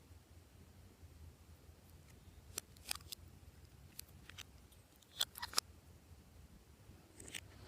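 Glossy slime being worked by hand, giving short sharp pops and clicks in small clusters, with a soft crackle near the end.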